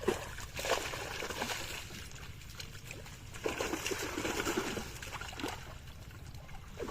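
Pond water splashing and sloshing in irregular bursts, strongest at the start and again in the middle, with faint voices in the background.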